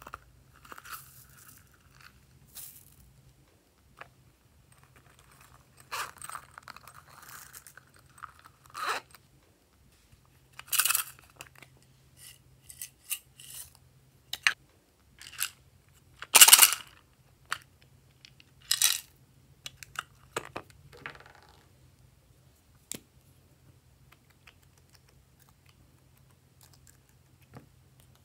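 Plastic slime containers and packets being handled, opened and emptied over a dish of slime: scattered crinkles, scrapes and taps, loudest about two-thirds of the way through and dying away near the end.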